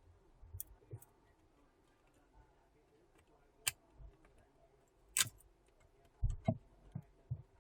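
Small repair tools and phone parts clicking and tapping against each other during an iPhone XR teardown: about eight sharp, irregularly spaced clicks, with a small cluster near the end.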